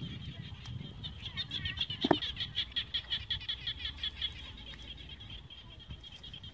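A steady high-pitched chorus of small calling animals from the rice paddy. A rapid pulsed trill, about seven pulses a second, rises out of it from about a second and a half in and lasts three seconds. A single sharp knock comes about two seconds in, over low muddy handling noise.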